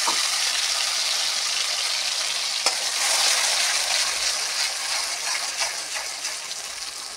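Wet ground onion-tomato masala sizzling hard in hot mustard oil in an iron kadhai while a slotted metal spatula stirs it. The sizzle slowly dies down as the paste settles into the oil, with one sharp tap of the spatula about two and a half seconds in.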